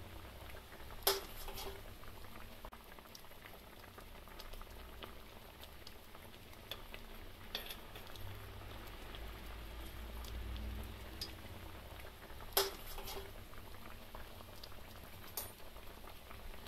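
Fish curry boiling in an earthenware pot: steady bubbling, with a few sharp clicks, the loudest about a second in and again about twelve seconds in.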